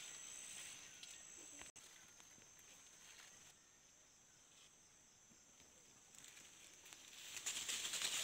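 Insects droning steadily at a high pitch, with rustling of maize leaves growing louder near the end.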